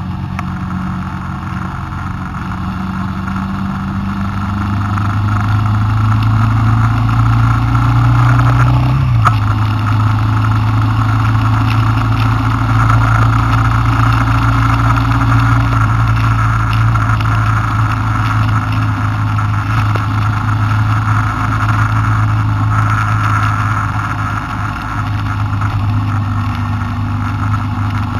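Car engine and road noise heard from inside the cabin while driving: the engine climbs in pitch under acceleration, drops abruptly about nine seconds in at a gear change, then runs steadily at cruising speed over a constant hiss of tyres and wind.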